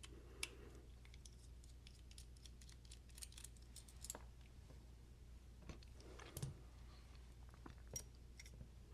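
Faint, scattered small metallic clicks and ticks from a driver and the screws and hardware of a Divo Nip folding knife being taken apart, a few slightly louder ticks among them.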